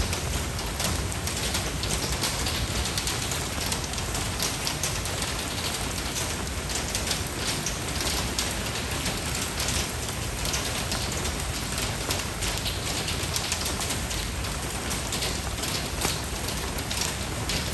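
Steady rain falling on a surface, an even hiss with many fine drop patters.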